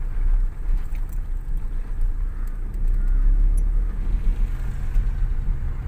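Steady low rumble of a vehicle's engine and road noise heard from inside the cabin, with a steadier low engine note coming in about two-thirds of the way through.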